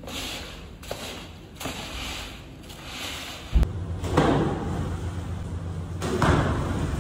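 Plastic crates thudding and scraping on a wet stone floor, twice in the second half, over a steady low machine hum. Before that, soft rhythmic rubbing from gloved hands working powder in a plastic tub.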